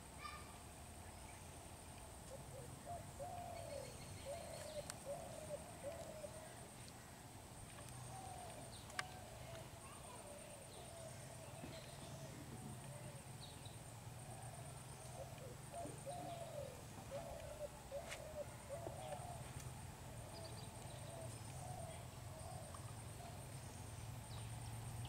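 A bird cooing in short repeated phrases, heard faintly over a steady low hum.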